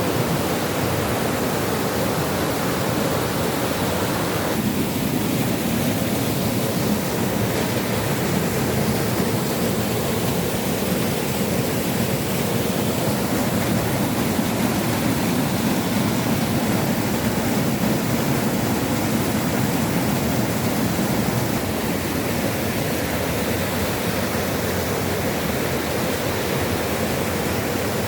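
Waterfall pouring steadily, a loud unbroken rush of falling water.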